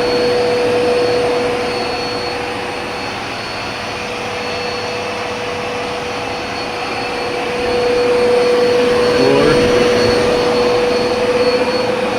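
Bissell Helix Turbo Rewind vacuum cleaner running at high speed: a steady motor rush with a constant whine. It gets a little quieter for a few seconds, then louder again about two-thirds of the way through.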